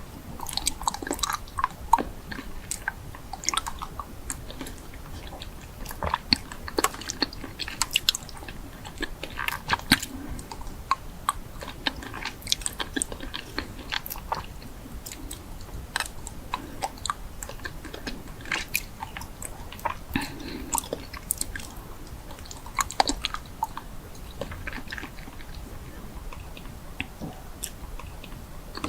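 A person chewing and biting crunchy food, with many irregular crisp crunches.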